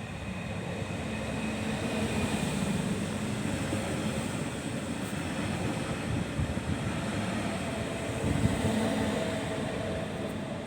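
Train running past on the rails, a steady rumble that builds over the first two seconds and eases near the end.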